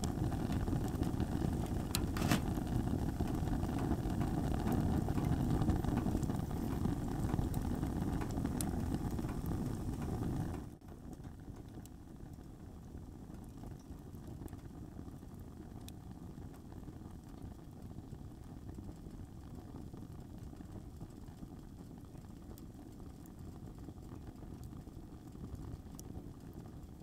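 Fire burning in a small tent wood stove: a low, steady roar with a few sharp crackles. About ten seconds in it cuts off suddenly to a much quieter, steady background hiss.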